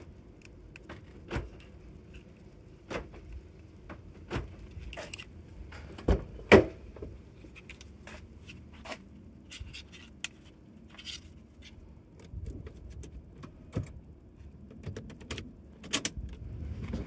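Scattered clicks, knocks and key jangling as a Lexus RX400h's driver's door is opened and its key and remote fob are handled and put into the ignition. The loudest knocks come a little past six seconds in.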